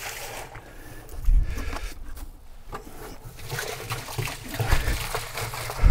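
Clean water splashing and trickling as a bee water feeder and its tank are rinsed free of disinfectant, with a few low thumps.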